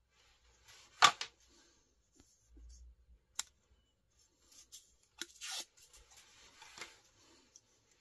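Handling noise as a closed Benchmade Freek 560-03 folding knife is pulled from its cloth drawstring pouch and turned in the hands. Fabric rustles under a series of sharp clicks and taps, the loudest about a second in.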